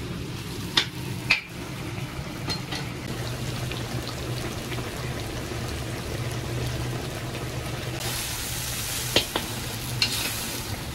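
Onions and meat frying in hot oil in a large plov pot: a steady sizzle over a low hum, with a few sharp knocks of a stirring utensil against the pot near the start and near the end. The sizzle turns brighter and hissier about eight seconds in. The onions are being fried until golden, the browning stage of plov.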